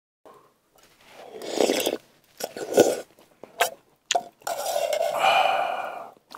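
A man eating hot stew straight from a metal camping pot: several noisy slurps, and a couple of sharp clicks of utensils against the pot partway through.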